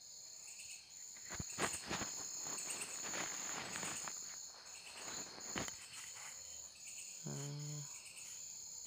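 Crickets chirping steadily in the background in a high, pulsing trill. A few sharp clicks come in the first two seconds and another at about five and a half seconds, and a short murmur of a man's voice comes near the end.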